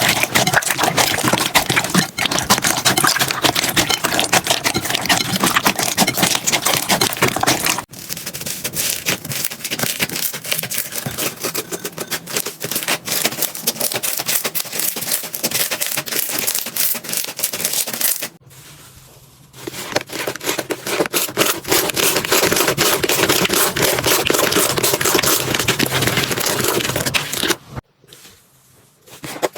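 Slime being squeezed, pressed and stretched by hand, giving dense crackling and popping with many small clicks. The texture changes about eight seconds in and drops out briefly twice.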